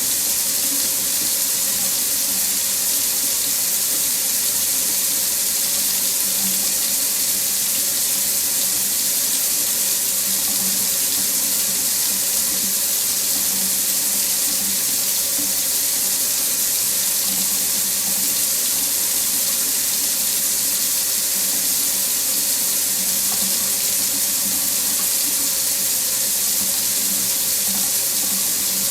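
Water tap running steadily into a sink, an even hiss of falling water that does not change.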